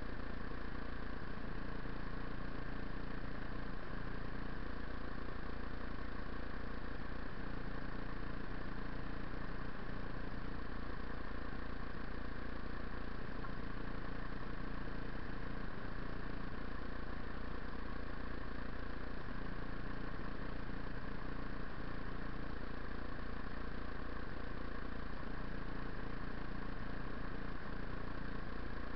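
2008 Buell XB9SX's 984 cc V-twin idling steadily at a standstill.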